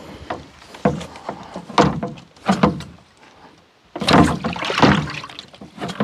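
British Seagull Forty Plus two-stroke outboard being pull-started with its starter cord: a few short, irregular bursts as the engine is turned over, with the longest near the end, but it does not catch and run.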